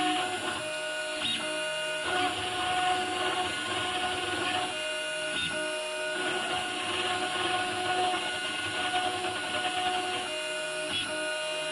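CNC engraving router cutting small lettering into a metal plate: a steady cutting hiss under motor tones that step between a few pitches every half second or so as the machine moves.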